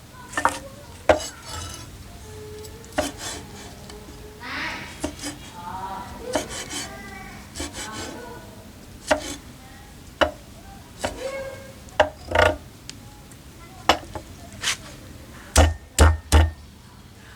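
Kitchen utensils clinking and knocking against pots and dishes in a string of separate sharp knocks, with a few heavier thumps near the end.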